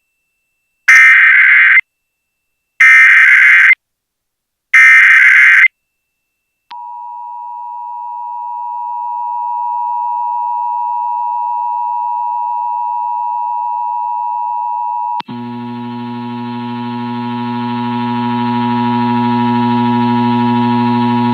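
Emergency Alert System test signal: three short bursts of SAME header data tones about a second apart, then the two-tone EAS attention signal held steady for about eight seconds. About fifteen seconds in it cuts to a low buzzing tone with many overtones that grows louder.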